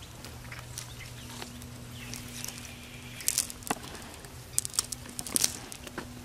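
A cast net and freshly caught fish handled on dry ground: scattered rustles and taps from the net mesh, its sinkers and the fish, coming more often in the second half, over a faint steady low hum.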